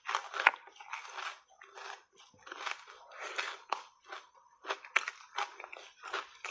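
A person biting and chewing reshaped ice coated in matcha powder: a quick, irregular run of crunches, the loudest about half a second in and again around five seconds in.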